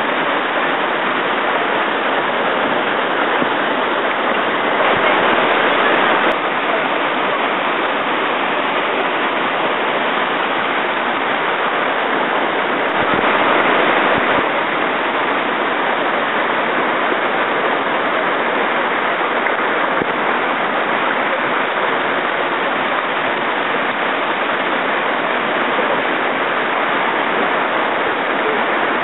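White-water river rapids rushing, loud and steady, with two brief louder surges.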